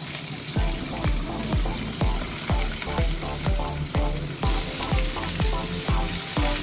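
Pork slices and ginger sizzling in hot oil in a wok, the hiss growing as more meat goes in. Background music with a steady beat of about two drum hits a second starts about half a second in.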